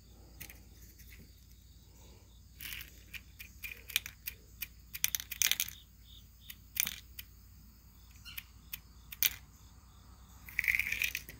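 Small silver shot pellets clicking and rattling as they are tipped into a plastic cup on a digital pocket scale, in irregular bursts of sharp ticks.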